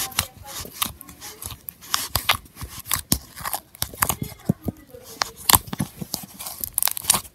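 Fingers poking and squeezing thick slime in a plastic container, making irregular sharp wet clicks and pops, several a second.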